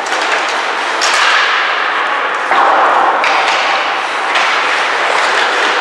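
Ice hockey play: skates scraping across the ice in a steady hiss, with sharp clacks of sticks and puck, the clearest about a second in.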